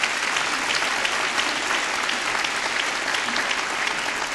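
Audience applauding steadily, many hands clapping at once, a welcome for the next speaker.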